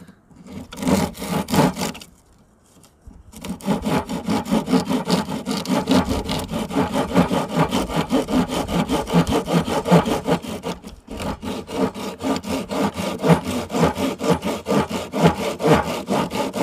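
Hand sawing through a cottonwood branch with a reciprocating-saw blade fitted in a metal tube handle, rasping with each push and pull. A few strokes, a short pause, then a fast, even run of strokes with one brief break partway through.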